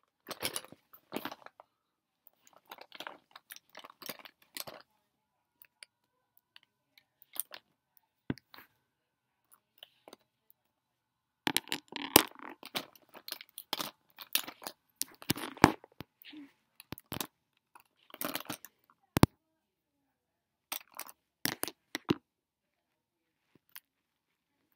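Makeup products and their cases being picked up, set down and rummaged through: scattered clicks, knocks and rustling with quiet gaps between them, busiest through the middle, with a few sharp knocks.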